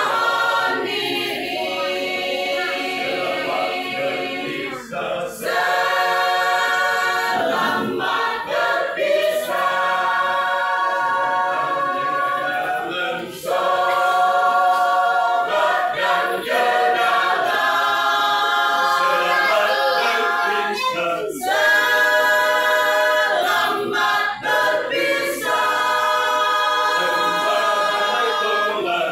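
Mixed choir of men's and women's voices singing a masamper song a cappella, the Sangihe-Talaud choral singing style, in long harmonised phrases with short breaks between them.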